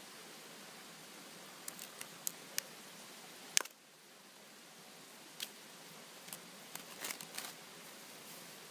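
Scattered light clicks and taps over a steady faint hiss, with one sharper click about three and a half seconds in.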